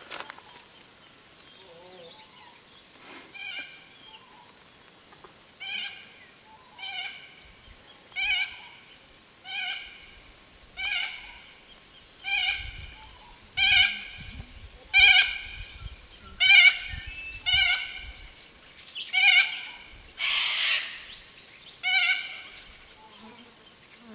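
Feral goat bleating over and over, about once a second, each bleat a short quavering call, growing louder toward the middle. One harsher, noisier bleat comes about twenty seconds in.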